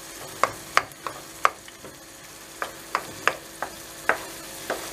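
Wooden spoon tapping and scraping against a frying pan, about ten sharp irregular knocks, as it is worked around eggs frying with sucuk to set the whites faster. A faint sizzle of the frying runs underneath.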